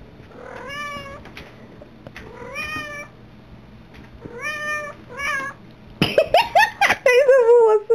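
Tomcat in mating season meowing in long, drawn-out calls, four in the first five and a half seconds. Then comes a burst of louder, sharper cries ending in a long wavering call that falls in pitch.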